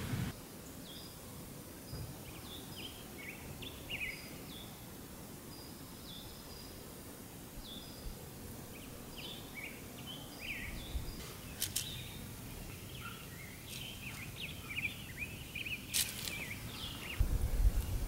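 Small birds chirping: short high notes and quick downward swoops scattered throughout, over a quiet outdoor background, with a couple of sharp clicks in the second half.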